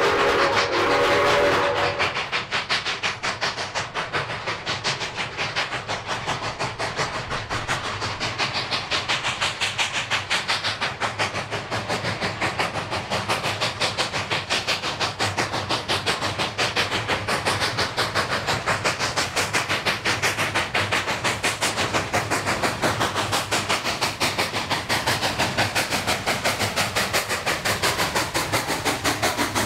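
Two K36 2-8-2 narrow-gauge steam locomotives working hard in tandem up a 4% grade: a chime steam whistle that ends about a second and a half in, then fast, steady exhaust chuffing that grows louder as the engines come close.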